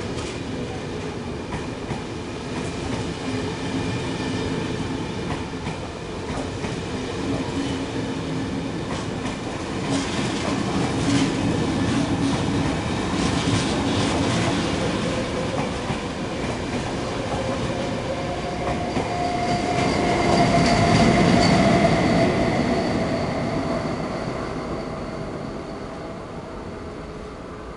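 Locomotive-hauled intercity passenger train passing on the track, its wheels clicking over rail joints. It grows louder to a peak about 21 seconds in, with a steady whine at the loudest point, then fades away.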